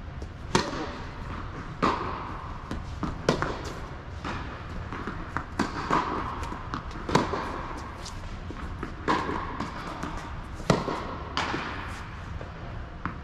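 Tennis rally with Yonex rackets: a serve about half a second in, then the ball hit back and forth and bouncing on the hard court, sharp pops every second or so, each ringing briefly in the echoing indoor hall.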